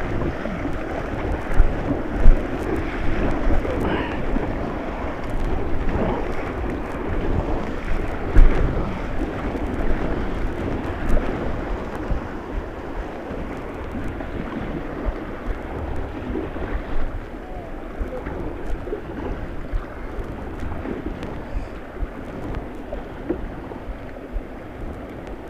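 Rushing white water and splashing around a kayak, with wind and spray buffeting the deck-mounted camera's microphone. Several sharp thumps stand out, the loudest about two and eight seconds in.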